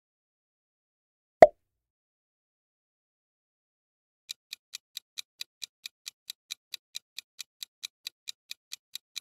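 A single short pop sound effect about one and a half seconds in. From about four seconds in, a quiz countdown timer ticks evenly at about four or five ticks a second.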